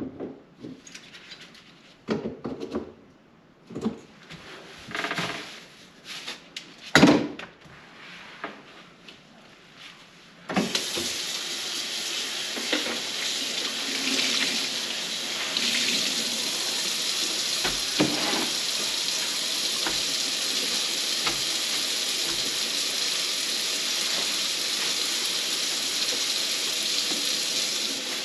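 Scattered knocks and clatter for about ten seconds, then a kitchen sink faucet is turned on and water runs steadily into the sink.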